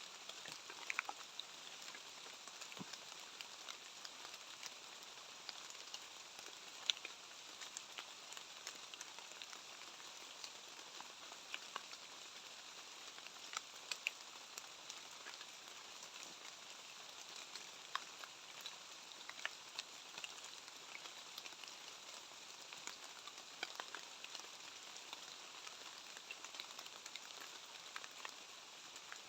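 Light rain pattering steadily, with many small scattered drop ticks.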